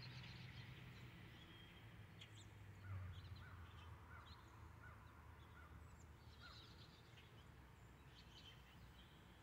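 Near silence outdoors: faint scattered short bird chirps over a low steady hum.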